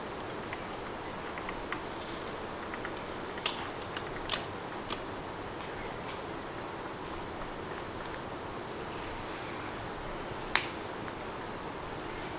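Steady rain with birds chirping in short, high notes through much of it, and a few sharp clicks or taps, the loudest about ten and a half seconds in.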